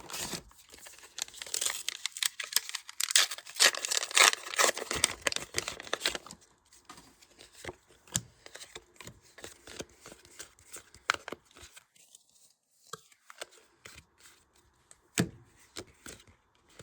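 Foil wrapper of a trading-card booster pack being torn open and crinkled for a few seconds, followed by scattered light clicks and taps of the cards being handled.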